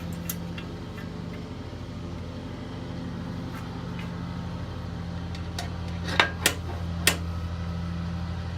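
Three sharp metallic clicks, a little past six and again near seven seconds in, as half nuts are popped into the slots of a Front Runner Slimline II roof rack's rails. A steady low hum runs underneath.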